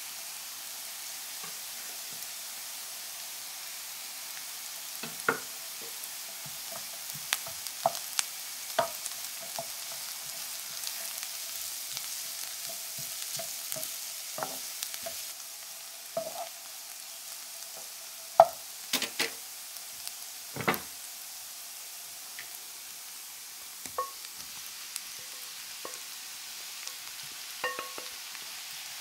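Onions and garlic sizzling steadily in a nonstick frying pan, stirred with a wooden spatula that scrapes and knocks against the pan at scattered moments, several sharper knocks coming about two-thirds of the way through.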